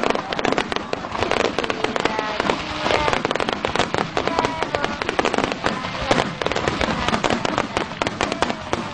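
A dense barrage of aerial fireworks shells bursting together: a continuous stream of overlapping bangs and crackles with no pause.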